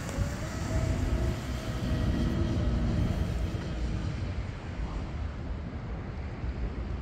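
Twin Turnigy XK3674 2200 kV brushless motors of an RC mono speed boat whining at speed. The pitch rises slightly, then the whine fades as the boat runs away into the distance. A low rumble of wind on the microphone lies underneath.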